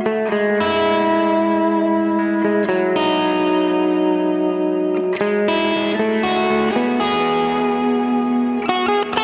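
Electric guitar played through a Line 6 POD X3 Live pedalboard on a lightly distorted crunch tone with worship-style ambience. Melodic notes and chords ring into one another, changing every second or so.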